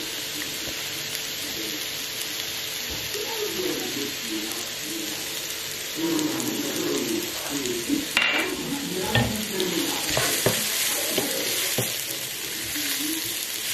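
Sliced button mushrooms frying in butter in an enamelled skillet, a steady sizzle throughout. From about the middle on, a wooden spoon stirs them, with a few short knocks and scrapes against the pan.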